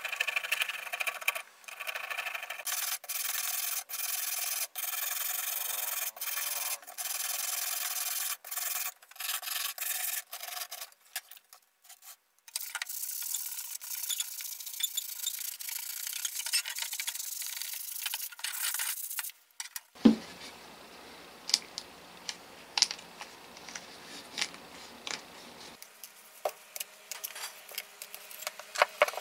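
A pointed tool scraping and rubbing old material off a band saw's handle housing in short runs, then a sanding sponge rubbed over the same housing. About two-thirds of the way in this gives way to a sharp click and light clicks of metal drive pulleys being handled.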